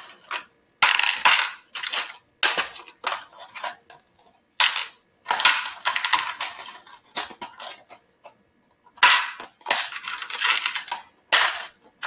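Pennies and metal tweezers clattering and clinking against clear plastic tubs as coins are picked up and dropped in, in irregular bursts with short pauses between them.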